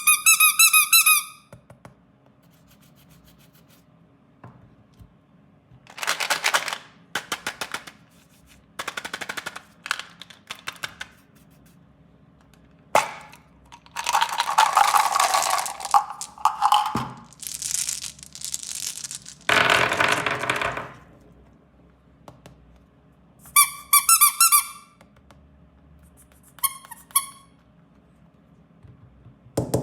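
Candy and toy packaging handled close to the microphone: plastic wrappers crinkling and tearing in several bursts, with short pulsing squeaks at the start and twice near the end.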